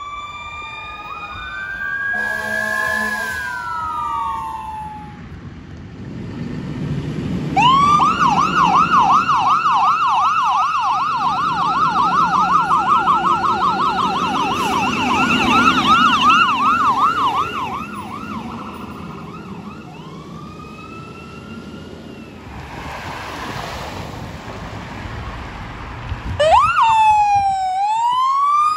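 Electronic sirens on responding fire apparatus: a wail falling in pitch, a short horn blast about two seconds in, then a fast yelp over a diesel engine as the fire engine pulls out. The wail starts up again twice later, rising in pitch, as the second unit sets off.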